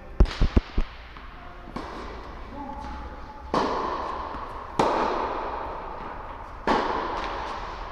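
Tennis balls struck by racquets, four sharp pops each followed by a long echo in a large indoor tennis hall. A few quick clicks of the phone being handled come first.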